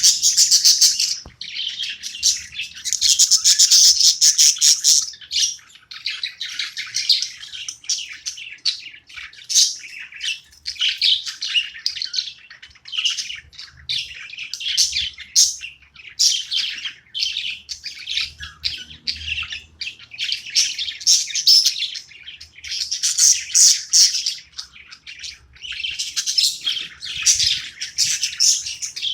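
Pet budgerigars chirping and chattering without a break, in quick high-pitched notes, with louder busy stretches near the start and a few seconds in.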